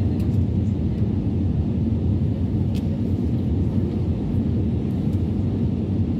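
Airliner cabin noise on low final approach: a steady low rumble of jet engines and rushing air through the fuselage, with a couple of faint ticks.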